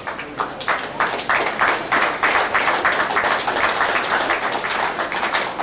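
Audience applauding: scattered claps at first, filling out into steady applause within the first second or two.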